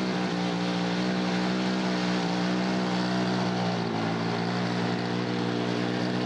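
Radio-controlled scale model airplane engine running at a steady, even pitch, typical of idling on the ground after landing. The pitch sags briefly about four seconds in.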